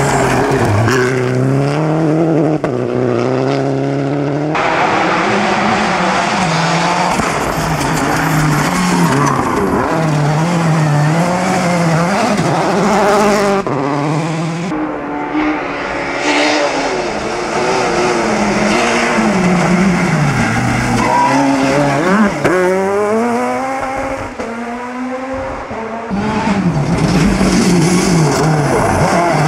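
Rally cars driven flat out on a gravel stage, one after another, among them a Citroën DS3 rally car and a Citroën C4 WRC: engines revving hard, rising and dropping in pitch through gear changes and lifts, with loose gravel hissing under the tyres. The sound changes abruptly several times as one car gives way to the next.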